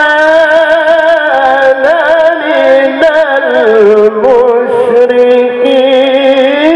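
A male qari reciting the Quran in melodic tilawah style, holding long unbroken notes decorated with fast wavering turns. The melody sinks lower about two-thirds of the way through and climbs again near the end.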